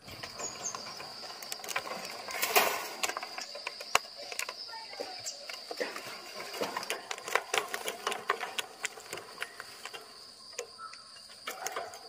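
Pigeons moving about a wire cage: irregular clicks and scrapes of claws and beaks on the mesh floor, busiest about two and a half seconds in, over a steady thin high-pitched tone.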